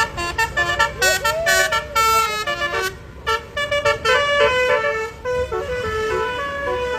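Bus 'telolet' basuri multi-tone air horn playing a melody of short, stepping notes, with a brief rising-and-falling glide about a second in.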